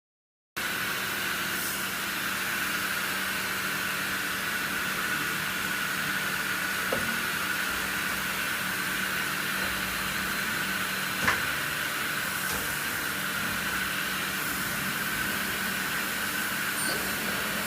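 Mori Seiki NL2500 CNC lathe powered up and standing idle: a steady machine hum and hiss with a constant whine, starting about half a second in, with a single sharp click near the middle.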